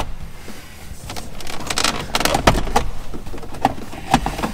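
Plastic shifter trim bezel and shift boot being pulled up around the shift lever: scattered sharp clicks and light rustling, with the crispest clicks about two and a half seconds in and near the end.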